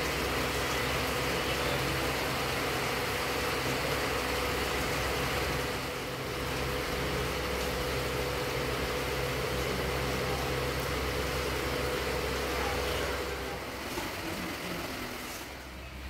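A steady machine hum with a constant low drone and a held tone, easing off about thirteen seconds in.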